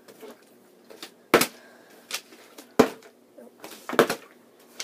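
Plastic water bottles with some water inside, flipped and thudding down on a wooden surface. There are several sharp knocks roughly a second apart, and the loudest is a quick double knock near the end.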